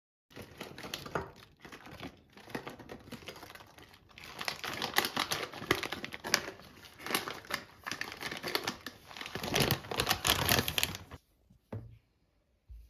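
Crinkling and crumpling of a thin material being handled, full of small crackles and clicks, in irregular bouts that stop about eleven seconds in.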